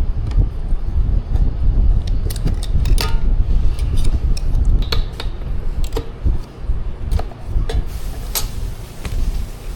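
Scattered light clinks and knocks, with a few sharper ones about 3, 5 and 8 seconds in, over a constant low rumble.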